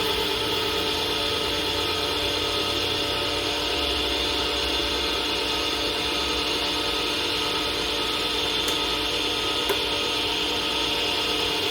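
A lathe running steadily, its motor giving a constant hum and whine.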